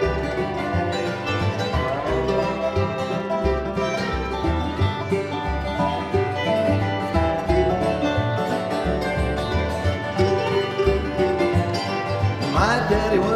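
Live acoustic jug-band swing: fiddle, mandolin and acoustic guitars playing an instrumental passage, over a washtub bass's low notes pulsing on the beat.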